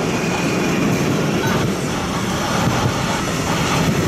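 Loaded container wagons of an intermodal freight train rolling past close by: a steady noise of steel wheels running on the rails.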